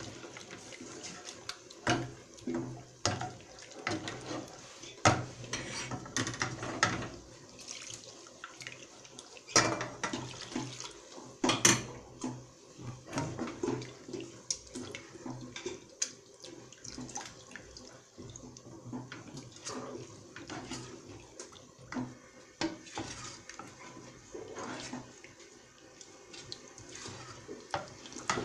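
Wooden spoon stirring thin béchamel in a stainless steel saucepan: the liquid sloshes, and the spoon scrapes and knocks irregularly against the pan's sides and bottom.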